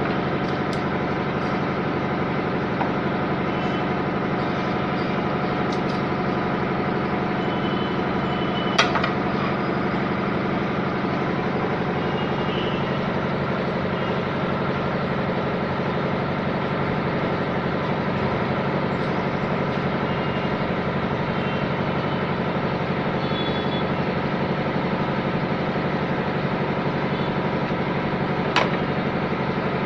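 A motor running steadily, a continuous mechanical hum with several fixed pitches, broken by two sharp clicks, one about nine seconds in and one near the end.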